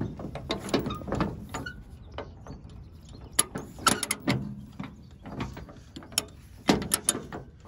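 Steel tie-down chain and chain binder being handled: irregular metallic clinks, knocks and rattles.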